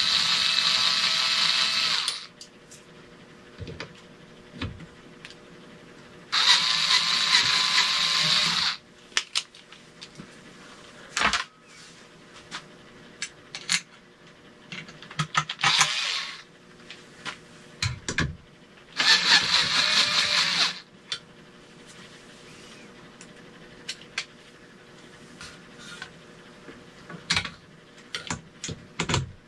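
Power drill running in four bursts of about two seconds each, high-pitched, with short clicks and knocks in the pauses between.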